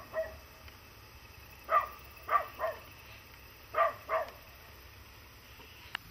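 A dog barking: short barks in quick groups, one at the very start, three about two seconds in and two about four seconds in.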